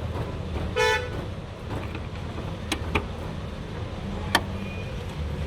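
A short car horn toot about a second in, over a steady low rumble of engines or traffic. Three sharp clicks or knocks follow later.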